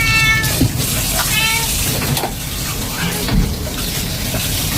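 Shower water spraying steadily over a cat being bathed, while the cat gives two short, high meows in the first second and a half of protest at the bath.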